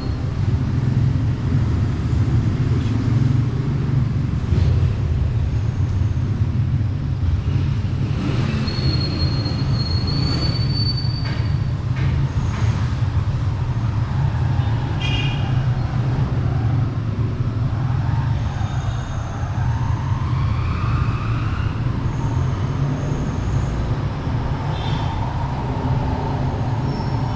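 Steady, loud low rumble of motor-vehicle engines, with a few faint higher tones and glides over it.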